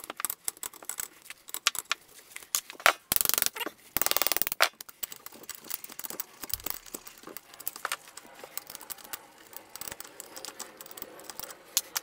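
Hand socket ratchet clicking in two short quick runs as the intake manifold fasteners come off an aluminium motorcycle cylinder head, followed by lighter metallic clinks and taps as the loosened parts are handled.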